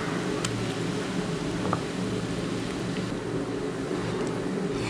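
A steady low mechanical hum with an even hiss behind it, and two faint clicks about half a second and nearly two seconds in.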